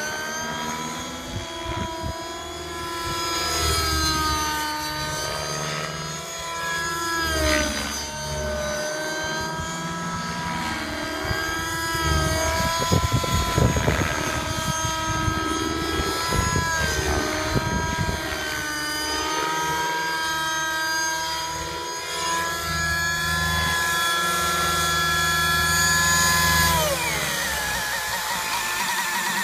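Nitro-powered RC helicopter (T-Rex 600 Nitro Pro DFC with an OS 55 HZ Hyper glow engine) flying aerobatics, its engine and rotor note rising and falling with each manoeuvre. Near the end the pitch drops sharply as it comes down to land.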